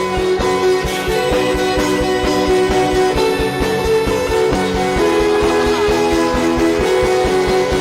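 Instrumental worship music with guitar over a steady, quick beat, sustained chords changing every second or so.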